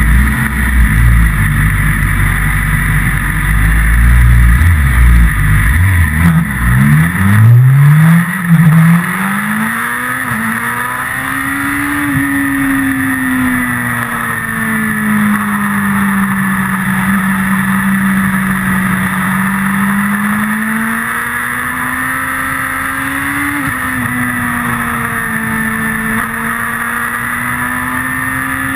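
Sport motorcycle engine heard from a camera mounted on the bike: a rough low rumble at first, then quick rising revs through the lower gears about seven seconds in as it pulls away, then a single engine note that slowly rises and falls with speed on the track, over a steady rush of wind.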